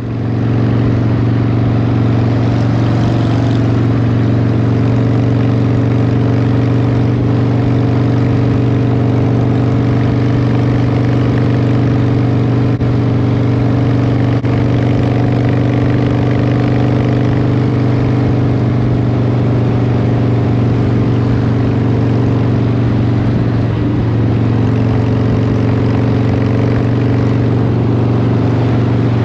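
Harley-Davidson Evolution Fat Boy's air-cooled V-twin engine running steadily at highway cruising speed, with an even rush of wind and road noise. The sound fades in at the very start.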